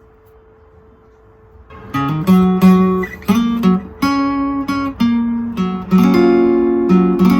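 Acoustic guitar played with a pick: after a short quiet pause, a phrase of picked and strummed chords begins about two seconds in, each stroke sharp at the start and ringing on as the chords change.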